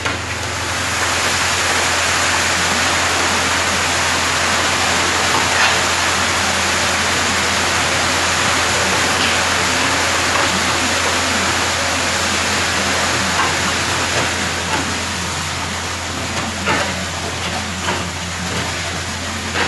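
Wet concrete rushing and sliding down a chute, starting about a second in and easing slightly near the end, over the steady low hum of the machine's engine running outside.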